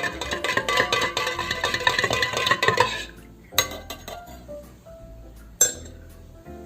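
Background music with a busy beat that thins to a few soft held notes about three seconds in. Two sharp clinks ring out over the quieter part, the second one the loudest sound in the stretch.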